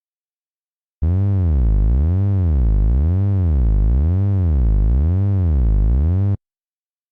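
Synthesized electronic sound effect: a low tone with many overtones whose pitch swoops up and down about once a second, like a slow siren. It starts suddenly about a second in and cuts off sharply after about five seconds.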